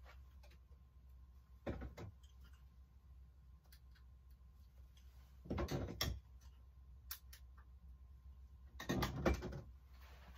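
Candle jars being handled on a wall shelf: three short bouts of knocking and clinking, about two seconds in, around six seconds in and near the end, over a faint steady hum.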